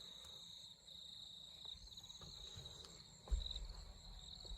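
Crickets chirping faintly in a steady, pulsing trill, with a brief low rumble a little past three seconds in.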